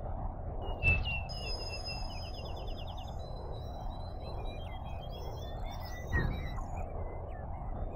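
Electroacoustic music made from processed field recordings: a filtered noise bed that swells and dips in a regular pulse, with low thumps about one second in and about six seconds in, and high electronic whistles, chirps and a quick run of ticks above it.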